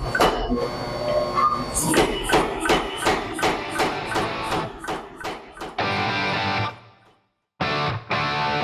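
Music with guitar over a steady beat of sharp strikes, about two to three a second; after about six seconds it turns to a held sound, cuts out briefly about seven seconds in, and comes back.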